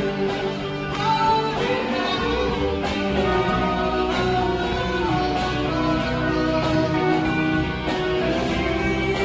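Live guitar music played with a steady beat, part of an open-mic song performance.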